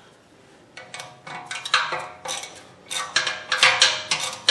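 Metal-on-metal clicking and clinking in quick clusters, starting about a second in, with a light ringing: hand tools working on the wheel hub's mounting bolts.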